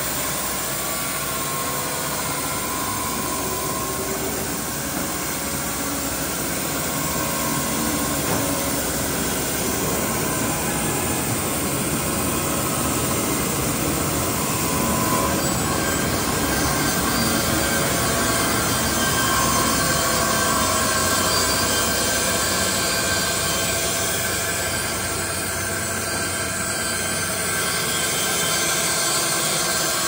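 Baker Model 3650E band sawmill running, its band blade cutting steadily along a squared log as the saw head travels down the carriage. It makes a loud, even machine noise with a few faint steady tones throughout.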